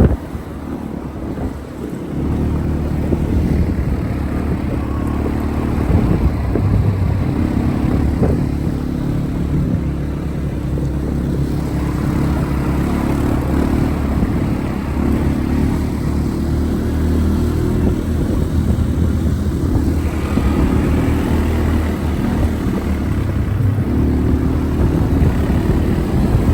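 Quad bike (ATV) engine running under way as it is ridden, a steady low engine drone that is a little quieter for the first two seconds.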